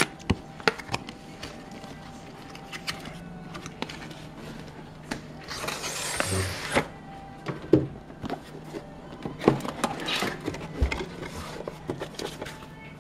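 A cardboard product box being handled and opened: scattered taps, clicks and rustles of card, with a longer scraping rush and a soft thump about six seconds in.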